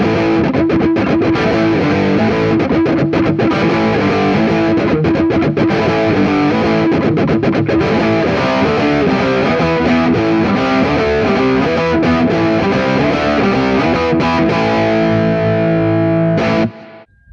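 Rock music with distorted electric guitar, cutting off abruptly about a second before the end.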